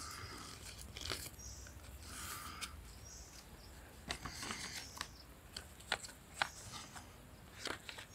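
A sheet of lined notebook paper being folded and creased by hand: scattered sharp crinkles and rustles, with quiet stretches in between.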